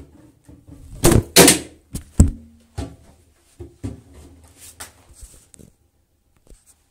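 A series of knocks and thumps: two loud ones about a second in, another sharp one near two seconds, then lighter taps and thuds that fade out.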